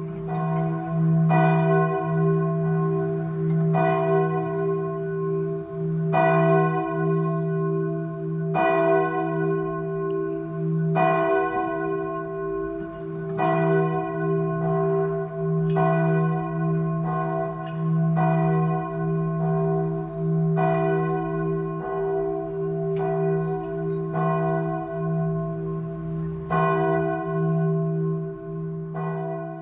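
Church bell tolling slowly, about a dozen strokes roughly every two and a half seconds, each stroke ringing on into a steady deep hum that carries between strokes.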